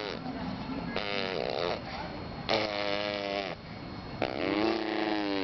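A baby making fart sounds with her voice: three drawn-out, pitched buzzes, each about a second long.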